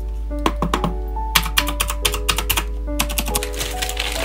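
Typing on an AZIO IZO mechanical keyboard: quick runs of key clicks that come and go, over background music with sustained notes.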